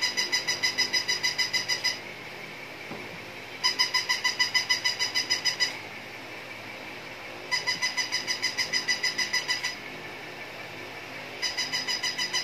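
Electronic toy puppy playing its sound: bursts of rapid, high-pitched electronic beeps, about six a second for some two seconds, repeating roughly every four seconds, four times.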